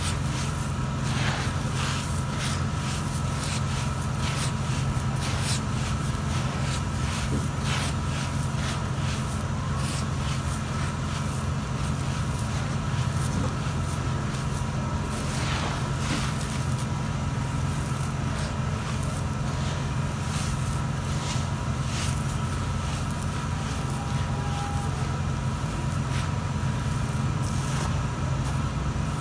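Hands crumbling and stirring a pile of dry soil, giving irregular soft crackles and rustles, over a steady low hum.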